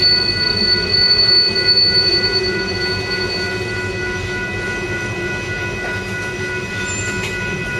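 Railroad tank cars rolling past over the rails with a steady rumble, and a high wheel squeal that fades out about halfway through.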